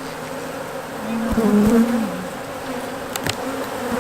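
Honeybees buzzing in numbers around an opened hive, with one bee's hum swelling and bending in pitch close by about a second in. A brief sharp click a little after three seconds.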